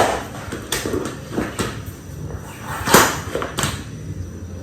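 Vinyl flooring planks knocking and clattering as they are pulled up and stacked: five or so sharp knocks at uneven intervals, the loudest at the start and about three seconds in.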